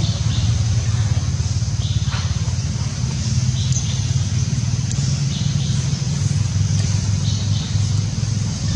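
A steady low engine-like rumble runs throughout, with a few short, faint high chirps now and then.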